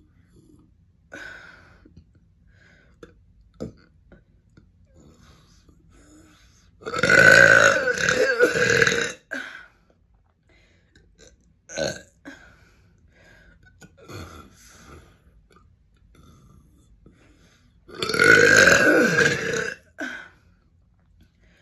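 A person burping: two long, loud belches about ten seconds apart, each lasting around two seconds, with a few short, quieter sounds in between.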